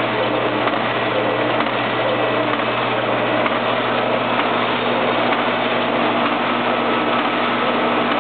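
Otto Hansel HTR chocolate bar wrapping machine running steadily: a constant mechanical clatter over a low motor hum.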